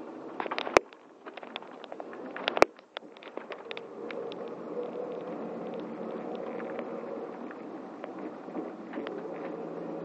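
Steady engine and road drone heard inside a long-distance coach bus on the move. Two sharp knocks come about one second and two and a half seconds in, with light clicks and rattles scattered through.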